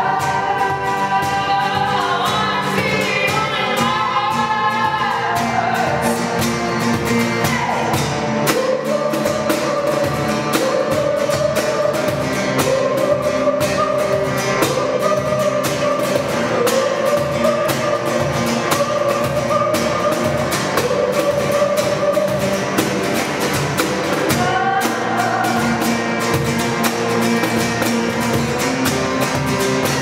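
A woman singing a song with long held notes, accompanied by strummed acoustic guitar and a cajon struck by hand in a steady beat.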